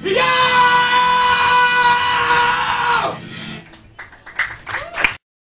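A man's voice holds one long high note for about three seconds over guitar, the closing note of a Filipino protest song, and then it drops away. Near the end come a few brief shouts before the sound cuts off.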